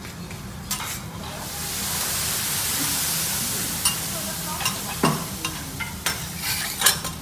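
Food sizzling on a teppanyaki steel griddle, the hiss swelling up about a second and a half in and easing off again, while a metal spatula scrapes and clicks against the hot plate several times, most sharply near the end.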